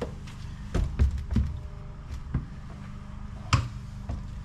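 Boots thumping against a Toyota 60 series Land Cruiser's front windscreen from inside the cab, pushing the glass out of its rubber seal: a series of dull knocks, the loudest about three and a half seconds in.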